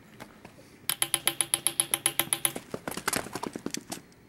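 Rapid, even tapping, about seven sharp ticks a second, starting about a second in. Near the end it turns faster and more irregular before it stops.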